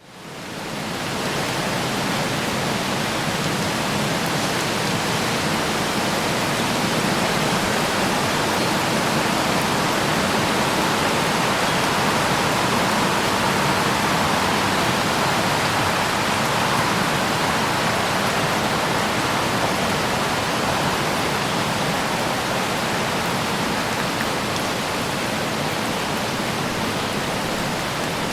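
Light rain falling on trees, a steady even hiss of drops on leaves that fades in over about the first second.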